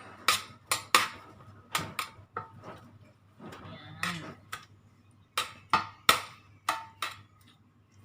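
Kitchen utensils and containers being handled: a dozen or so irregular sharp clicks and taps, as when things are set down on a counter or knocked against a dish.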